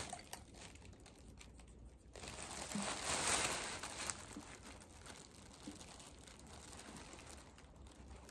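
Thin plastic shopping bags crinkling as they are handled, in one rustle from about two seconds in to about four seconds in. The rest is quiet apart from a few faint ticks.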